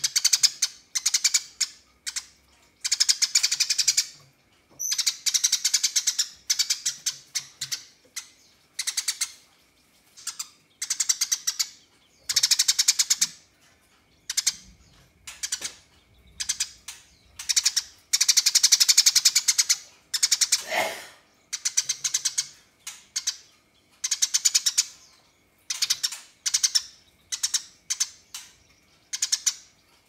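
Eurasian tree sparrow giving rapid chattering rattles, burst after burst with short gaps, the longest running about two seconds. This is the 'nyerecet' challenge call, given to provoke rival birds into singing.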